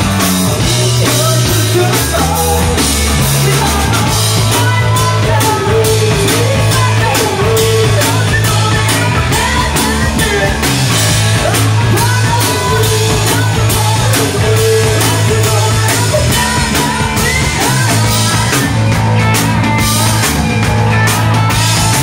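Rock band playing live and loud: electric guitar and a drum kit keeping a steady beat, with a woman singing over them.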